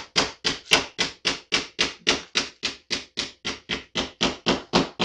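Small hammer tapping steadily on a Springfield XD(M) pistol's magazine release parts, about four light metal strikes a second.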